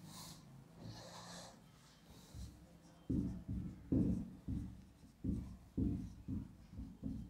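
Marker writing on a whiteboard: faint scratching at first, then from about three seconds in a run of short separate strokes, two to three a second, as letters are written.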